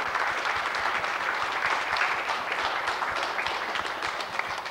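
Audience applauding, a dense patter of many hands clapping that thins slightly toward the end.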